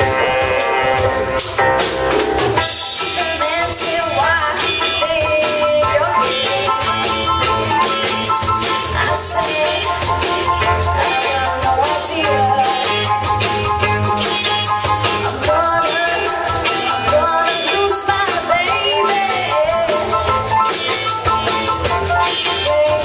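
Live pop-rock band playing through a PA: drum kit, electric guitars, keyboard and saxophone, with a woman singing.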